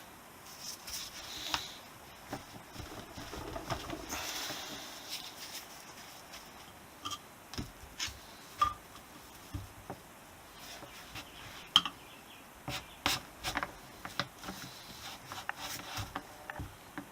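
Irregular clicks, taps and scraping of tools and metal parts being handled while a motorcycle fork leg is worked apart. There are a few sharp knocks, the loudest about twelve seconds in.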